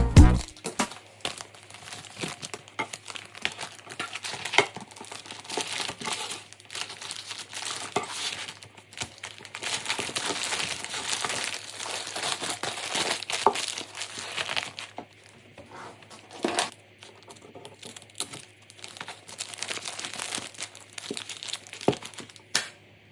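Wrapping material crinkling and rustling with small clicks and some tearing as kitchen knives are wrapped for shipping.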